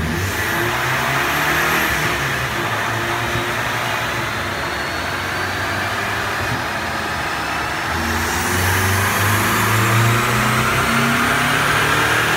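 Ford Mustang's engine at full throttle on a chassis dynamometer during the first dyno pull on its new engine, the revs climbing steadily under load. A thin high whine climbs in pitch with it, and the pull is still rising at the end.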